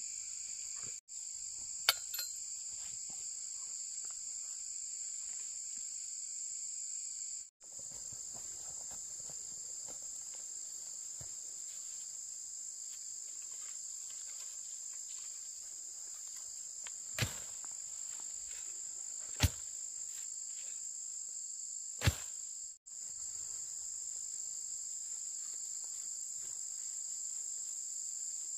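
Steady high-pitched insect chorus, broken by four sharp knocks, about two seconds in and three more between seventeen and twenty-two seconds in. The chorus cuts out for a moment three times.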